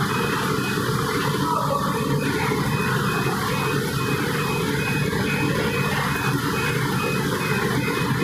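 Rotating perforated drum of a commercial popcorn machine running, with popcorn tumbling and rustling against the mesh in a steady, even noise.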